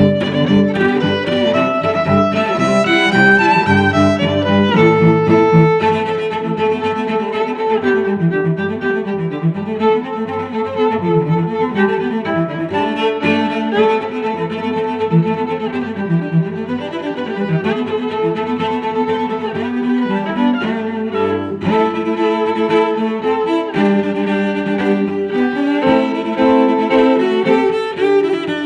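Background music: bowed strings, violin and cello, playing a melody over lower sustained notes.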